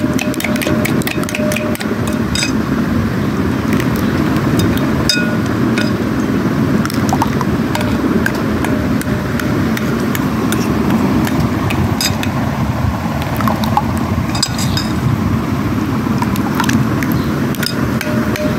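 A metal spoon beating thick yogurt and cream in a glass bowl: steady wet churning with frequent sharp clinks of the spoon against the glass.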